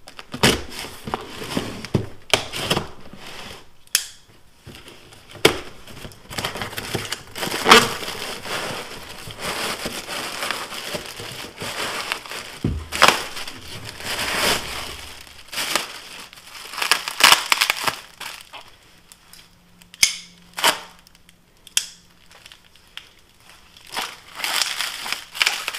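A cardboard shipping box and its packing tape being torn open, then plastic sleeves and bubble wrap crinkling and rustling as a new axe is unwrapped. The sound is a string of irregular rips, crackles and crumples.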